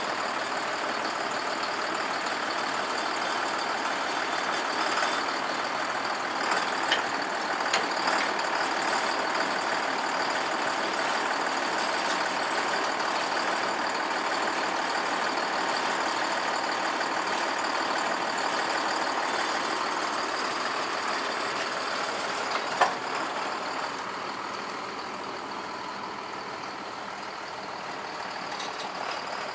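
A John Deere tractor's engine running under hydraulic load while a Knight trailed cultivator is lowered from transport onto its working position, with a few metal clunks from the implement, the loudest about 23 seconds in. The engine noise eases slightly soon after.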